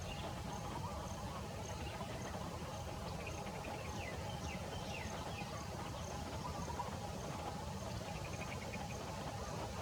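Outdoor background of insects and birds: an insect ticks high and evenly, about twice a second, over a steady low rumble. Small birds give short chirps and quick trills about four seconds in and again near the end.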